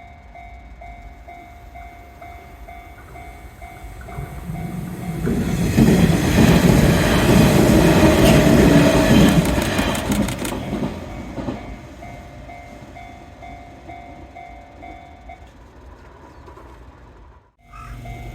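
Level-crossing warning bell dinging about twice a second while a Nishitetsu 6000-series electric train passes through the crossing. The train's rumble builds for a couple of seconds, is loudest for about four seconds with a quick run of wheel clicks over rail joints, then fades. The bell stops near the end.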